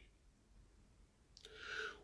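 Near silence, a pause between speech, with a faint short mouth or breath sound near the end.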